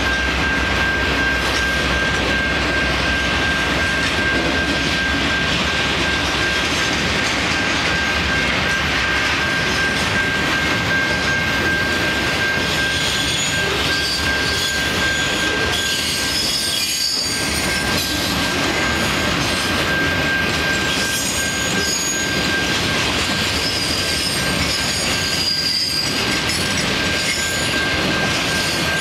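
Freight train of empty centerbeam flatcars rolling steadily past a level crossing, wheels rumbling and rattling on the rails, with high wheel squeals in the second half. The crossing signal's warning bell rings steadily over it.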